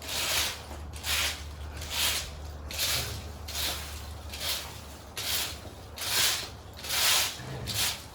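Broom sweeping: about ten steady, rhythmic swishing strokes, roughly one a second.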